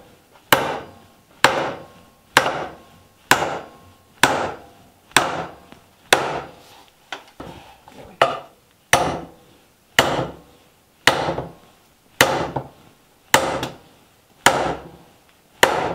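Hammer driving a 3-inch 10d nail through a pilot hole into a 2x4 leg, struck steadily about once a second, each blow a sharp wooden knock with a short ring.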